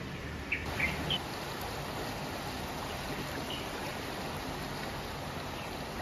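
Steady hiss of running water, with a few short bird chirps about a second in and one more a few seconds later.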